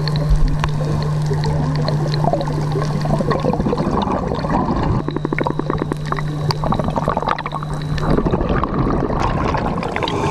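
Underwater sound of a scuba diver breathing on a regulator, picked up through the camera housing: gurgling bubbles of an exhalation about halfway through and again near the end, over a steady low hum.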